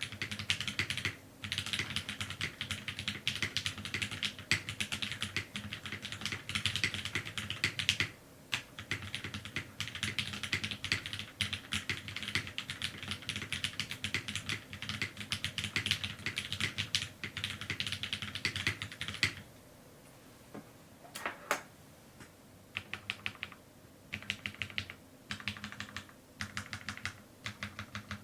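Fast typing on a mechanical keyboard with lubed vintage Cherry MX Black linear switches, an aluminium plate and GMK keycaps, picked up by a camera microphone. A dense stream of keystroke clacks pauses about two-thirds of the way through, then resumes in shorter bursts.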